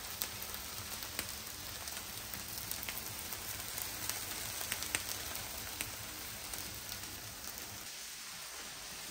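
Marinated rib steak sizzling on a comal lined with aluminium foil: a steady hiss with scattered crackles and pops of fat.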